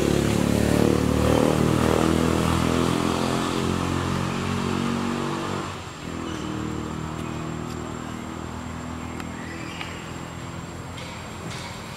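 A motor vehicle's engine running steadily, loud at first, then dropping sharply about six seconds in and carrying on more quietly.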